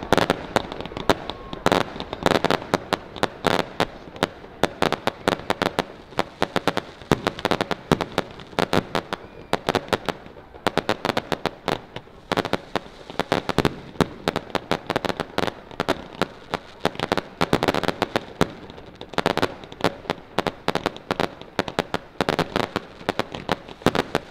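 Fireworks going off in a rapid, irregular barrage of sharp bangs and pops, many per second.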